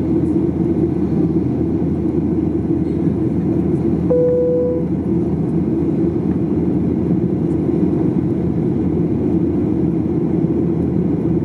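Steady in-flight cabin noise of a Boeing 737-800 airliner: a continuous low rush of engine and airflow. A short single tone sounds briefly about four seconds in.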